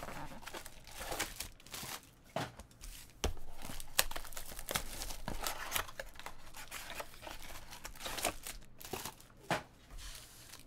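Cellophane shrink-wrap crinkling and tearing as it is stripped from a cardboard trading-card box, with the paperboard box flap being pulled open, in a steady run of sharp crackles and rustles.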